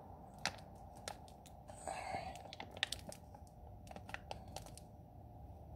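Faint crinkling and peeling of a vinyl decal's waxy backing paper being worked off the clear transfer sheet by hand, with scattered small clicks and a short rustle about two seconds in.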